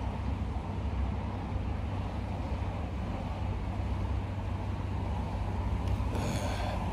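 Steady low outdoor rumble of city background noise, with a brief higher-pitched sound near the end.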